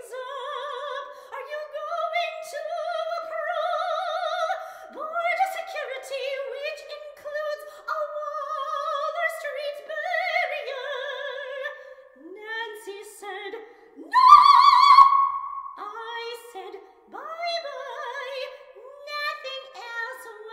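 One high voice singing in mock-operatic style with a wide vibrato, unaccompanied, in phrases with short breaths between them. A high held note about fourteen seconds in is the loudest.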